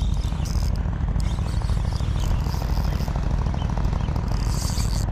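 Wind rumbling on the microphone, with the fine fast ticking of a spinning reel being cranked as a lure is retrieved.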